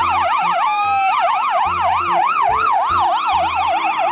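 Ambulance siren wailing in a fast up-and-down sweep, about three rises and falls a second, with one brief slower dip about a second in. It plays over background music with a steady bass beat.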